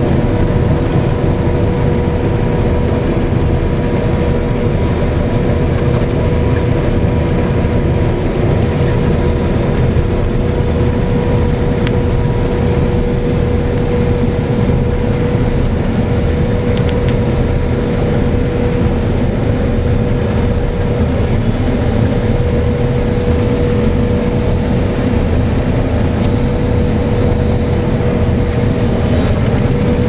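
Claas Lexion combine harvester working steadily through standing wheat: a continuous heavy engine and threshing drone with a steady high whine over it.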